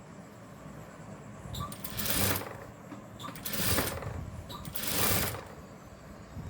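Sewing machine running in three short bursts of about half a second each while stitching a neck band onto a blouse front, with a faint click just before each burst.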